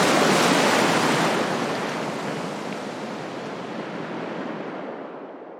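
Ocean surf rushing on a beach, loudest at the start and fading steadily away.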